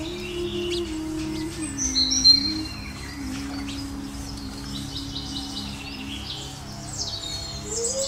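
A flock of house sparrows chirping, with one loud chirp about two seconds in, over soft background music of slow held notes.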